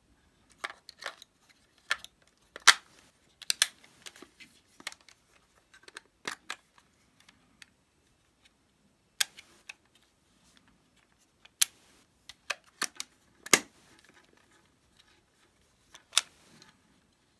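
Sharp plastic clicks and snaps of a Konica Big Mini VX compact 35mm film camera being handled: a CR123A battery going into its compartment and the camera's hinged battery and film doors being worked. The clicks come singly and in small clusters with pauses between, a handful of them much louder than the rest.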